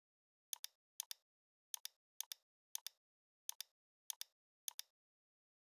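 Faint mouse clicks, eight in a row, each a quick press-and-release double click. Each one taps a letter on a phone's on-screen keyboard, typing a search.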